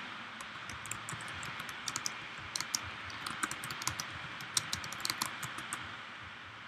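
Typing on a computer keyboard: a run of irregular keystroke clicks that stops near the end.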